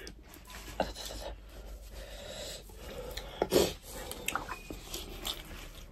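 Eating sounds at a table: chewing and fingers working rice and curry on plates, with irregular rubbing strokes. About three and a half seconds in comes a louder rub as a tissue is wiped across a nose running from hot chilli.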